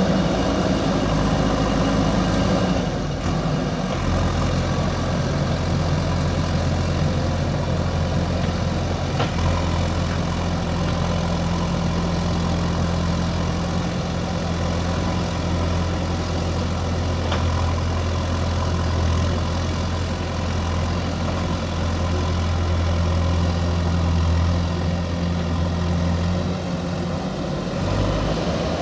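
JCB backhoe loader's diesel engine running steadily, its tone shifting about four seconds in and again near the end.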